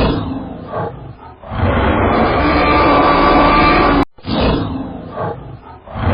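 A large animal's loud call: a falling pitched cry that turns into a long, rough, loud stretch. It breaks off abruptly about four seconds in and starts again.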